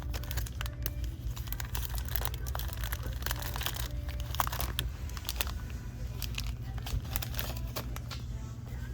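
Crinkling and rustling of snack packaging, with scattered light clicks and knocks, over a steady low hum of store ventilation and refrigeration.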